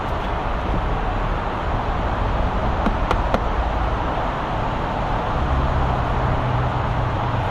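Steady traffic and vehicle rumble, with a few light clicks about three seconds in. A low engine hum comes in after about five seconds.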